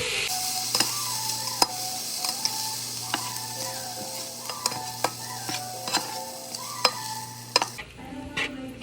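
Fried rice with vegetables sizzling in a hot pan while it is stirred, with a spatula knocking against the pan about once a second. The sizzle drops away near the end.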